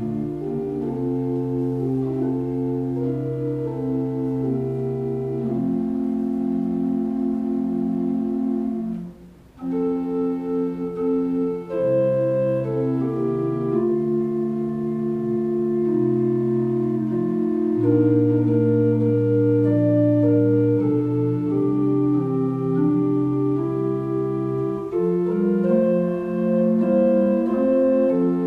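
Organ playing slow, held chords, the notes sustained and changing every second or two, with a short break about nine seconds in.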